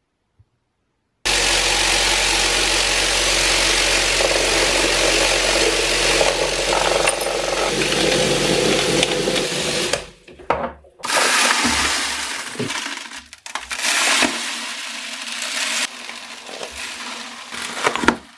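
SmartReloader vibratory tumbler running steadily with a low hum, its purple tumbling media rattling around small steel jack hammer parts, shut off abruptly about nine seconds in. Afterwards the media is poured out of the bowl with a rush of grains and the metal parts clinking.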